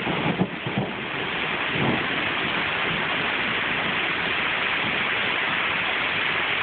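Heavy rain pouring down in a thunderstorm, a steady dense hiss. A low rumble of thunder runs through the first two seconds and dies away.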